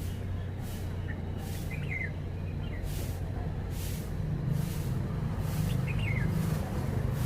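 A steady low rumble, growing slightly louder, with a few faint short chirps from a red-whiskered bulbul: a pair of chirps about two seconds in and another near six seconds.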